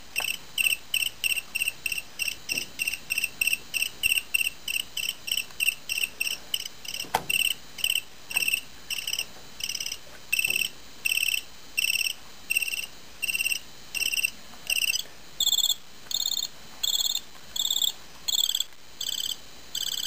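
Homemade electronic cricket circuit chirping through its piezo disc: short, shrill chirps repeat about three a second, then come slower and longer as its burst-rate potentiometer is adjusted. About fifteen seconds in, the chirps step up in pitch.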